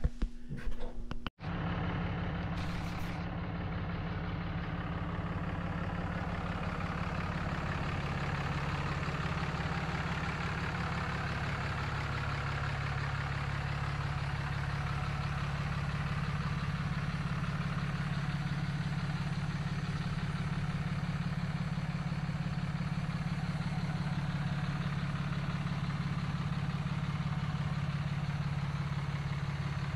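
Dodge Ram 5500's Cummins inline-six turbo-diesel idling steadily.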